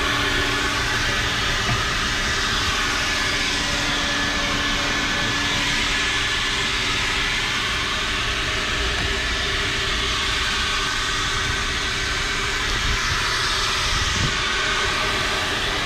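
Vacuum cleaner running steadily: a continuous rushing hiss with a faint motor whine.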